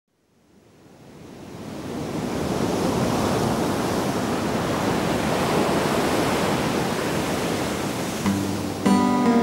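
Sea surf, a steady wash of waves that fades in from silence over the first couple of seconds. Acoustic guitar strums come in near the end.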